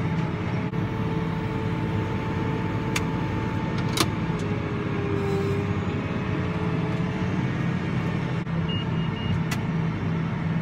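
Farm tractor engine running steadily, heard from inside the cab as a constant low drone with road and field noise, with a few sharp clicks and a brief electronic pipping near the end.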